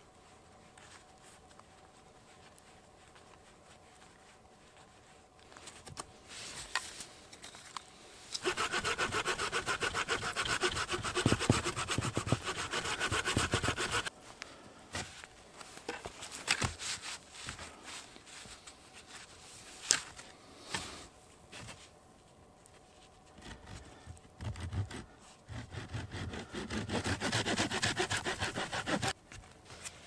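Hand saw cutting through wood in two spells of rapid back-and-forth strokes, the first about a third of the way in and the second near the end, with scattered knocks and handling noises between them.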